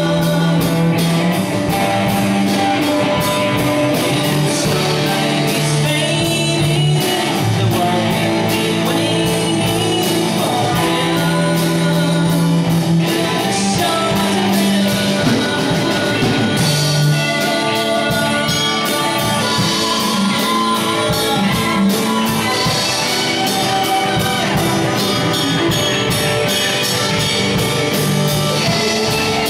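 Live rock band playing: electric guitars over a drum kit with a steady beat and a low held bass line, with singing.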